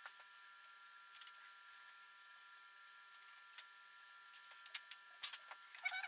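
Scattered light clicks and knocks of hand work in a workshop, getting busier near the end, with one sharp knock about five seconds in, over a faint steady high-pitched whine.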